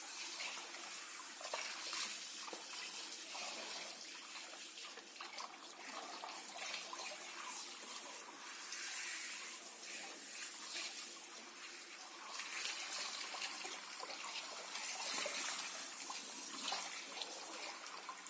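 Water from a shower head running and splashing in a bathtub as a dog is washed, a steady hiss that rises and falls as the spray moves.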